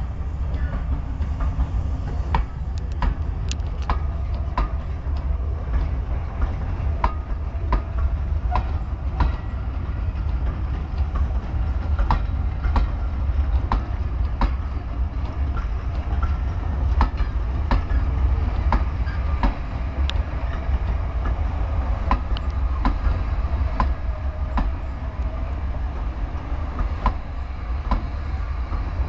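Heritage railway passenger coaches rolling past, their wheels clicking sharply and irregularly over rail joints and pointwork above a steady low rumble.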